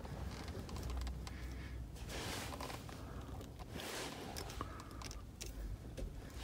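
A weighted aftermarket shift knob being screwed onto a car's threaded gear lever by hand: small clicks and scraping rustles, with the busiest stretches about two seconds in and again near four and five seconds.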